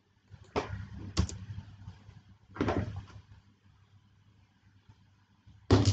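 A few sharp knocks and clatters: one about half a second in, a quick double knock just after a second, a longer rattle nearly three seconds in, and another knock near the end.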